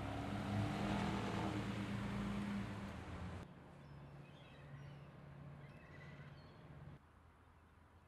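Street traffic: a car engine running and rising in pitch as it accelerates past. About three and a half seconds in, the sound cuts to a quieter steady low hum with a few short high chirps.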